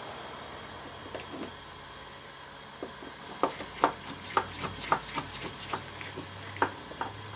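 Light, irregular clicks and taps of small hand tools being handled, about a dozen in the last four seconds, as screwdrivers are swapped to find one that fits the screws.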